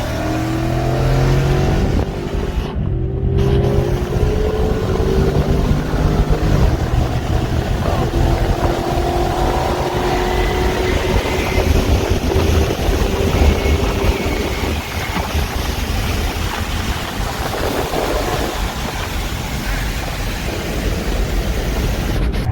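Car engine pulling hard under acceleration, its pitch climbing over the first few seconds, then a loud steady rumble mixed with wind and road noise at speed during a roll race.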